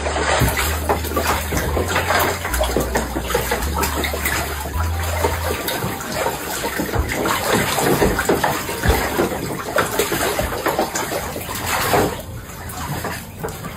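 Water splashing and sloshing in a shallow plastic tub as otters swim and play in it, with a louder splash about twelve seconds in.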